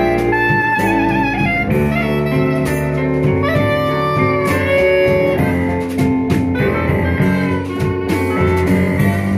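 A live jazz band playing. A clarinet carries the melody with a wavering vibrato over piano chords, with drum and cymbal strikes.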